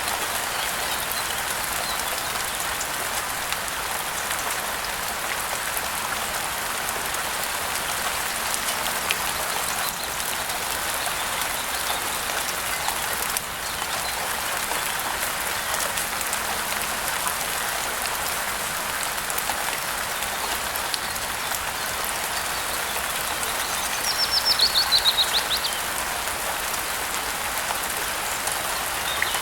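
Steady rain falling, with a bird's quick run of chirps falling in pitch, lasting about a second and a half near the end.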